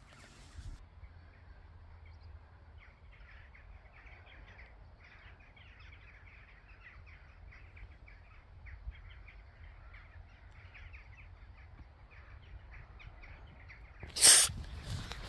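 Quiet open-field ambience: low wind rumble on the microphone and faint, scattered bird calls. A single short, loud noise breaks in near the end.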